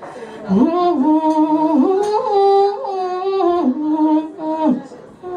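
A woman singing alone, holding long notes that step and slide up and down in pitch, with a pause near the end before the next note begins.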